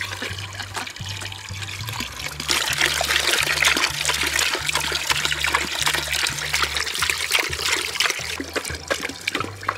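Water from a garden hose pouring into a plastic bucket partly full of water, a steady trickling splash that grows louder about two seconds in.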